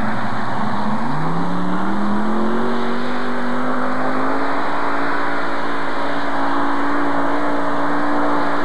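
Heavy modified pulling tractor's engines rising in pitch about a second in as the tractor takes off with the sled, then running at a steady high pitch under load as it pulls down the track.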